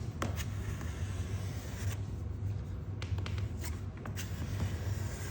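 Scraping and rubbing with scattered light clicks as a wood-glue-and-sawdust filler is worked into cracks in a hardwood floor, over a steady low hum.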